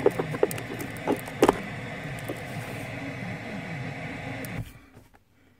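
FM static hissing from the car speakers while the FM transmitter is unplugged, with clicks of the unit being handled in the power socket. The hiss cuts off suddenly a little before the end, as the transmitter powers back on and takes over the radio frequency.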